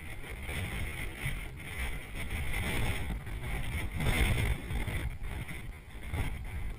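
Wind buffeting the microphone: low, uneven noise that swells and drops in gusts.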